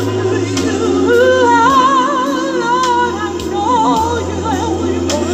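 A woman singing into a handheld microphone, amplified through a PA speaker, her voice in wavering, sliding runs with vibrato. Under her is an instrumental accompaniment with sustained bass notes.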